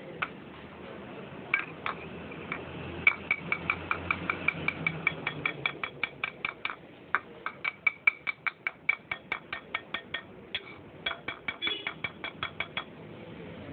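Rapid metallic clinks, several a second in runs with short pauses, each ringing briefly: a Honda Unicorn 150's metal cylinder-head breather pipe knocked against a ceramic plate to shake out the black carbon deposits clogging it.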